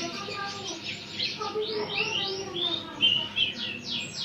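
Young Eurasian tree sparrow chirping rapidly and repeatedly as it is handled for ringing, a fast run of high chirps with a few longer, falling chirps in the middle.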